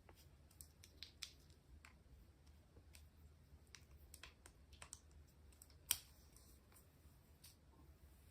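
Faint, irregular small clicks and taps of small plastic toy pieces and packaging being handled, with one sharper click about six seconds in.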